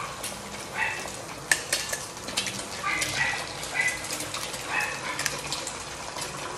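A spatula scrapes and taps in a frying pan over food sizzling in oil, with many sharp clicks. Several short, high chirps sound through it.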